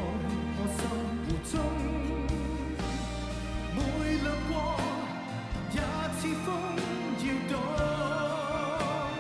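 A man singing a pop ballad with band accompaniment: steady bass notes under a sung melody, with vibrato on the held notes.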